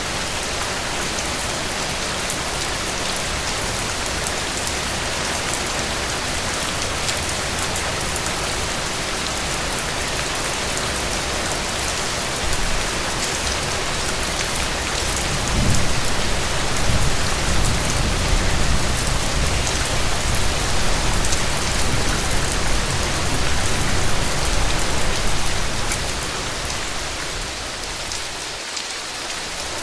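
Steady rain falling, with a low, soft rumble of thunder swelling about halfway through and lasting around ten seconds.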